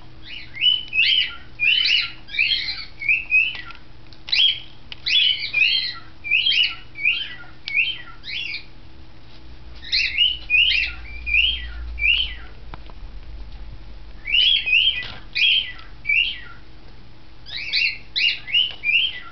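Green-cheeked conures calling: short, sharp chirps in quick runs of several a second, broken by pauses of a second or two.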